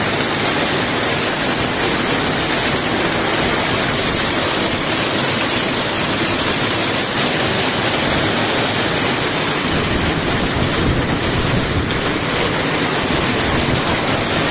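Heavy downpour pelting a paved street and road, a dense, steady hiss of rain with no letup.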